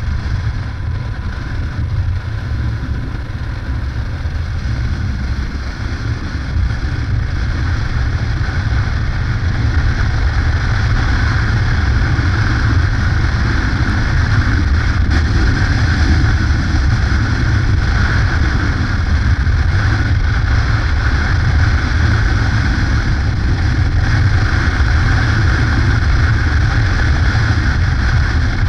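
Yamaha Ténéré motorcycle under way: engine running beneath a steady rush of wind and road noise. It grows louder over the first third and then holds steady.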